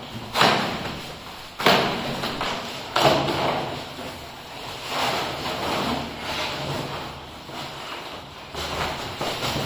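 Cardboard packaging being ripped off a flush door: three loud tearing rips in the first three seconds, then softer rustling and scraping of cardboard as the door is handled.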